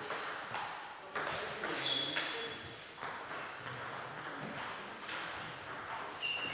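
Table tennis ball being struck by bats and bouncing on the table in a rally: sharp clicks about half a second apart for the first couple of seconds, then only a few scattered ones. Two short high squeaks, about 2 seconds in and near the end.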